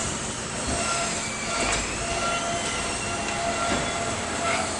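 A backhoe loader's engine running as its rear arm works through demolition rubble, with high metallic squealing and a couple of sharp knocks from the bucket and debris.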